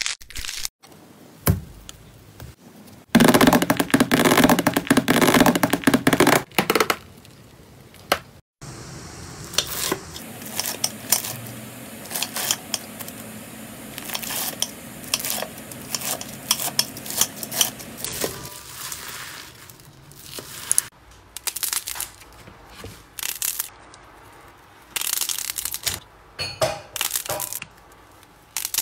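Slime being handled: hands squishing and pressing soft clay-like slime, and a knife cutting through crunchy bead-filled slime, giving many small crackles and clicks. A louder, dense stretch of crackling comes a few seconds in.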